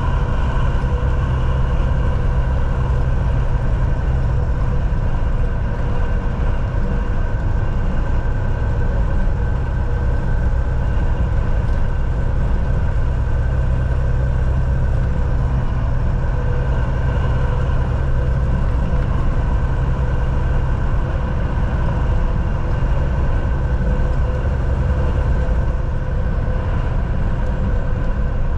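Semi truck driving on the road: a steady low engine drone and road rumble, with a few constant hums above it.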